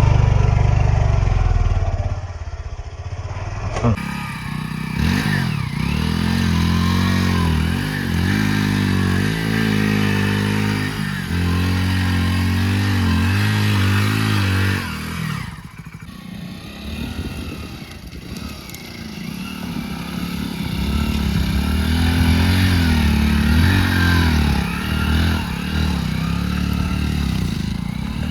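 Hero Splendor motorcycle's single-cylinder engine revving up and down repeatedly as it is ridden hard, with the pitch rising and falling over and over. It eases off briefly in the middle before picking up again.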